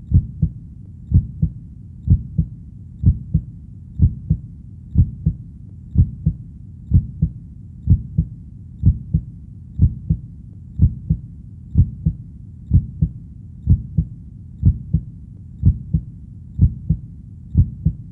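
Heartbeat, a steady double 'lub-dub' beat about once a second, over a low steady rumble.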